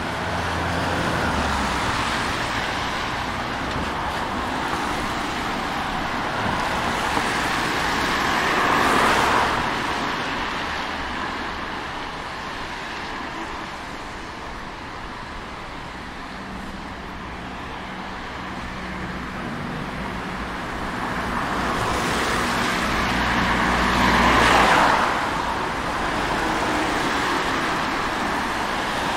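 Street traffic with a steady background hum, and two vehicles passing close by, one about a third of the way in and a louder one about four-fifths of the way in.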